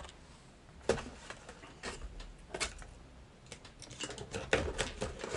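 Hands handling things in a cardboard shipping box: a few separate taps and clicks, then a denser run of crinkling rustles as paper packing is pulled out, starting about three and a half seconds in.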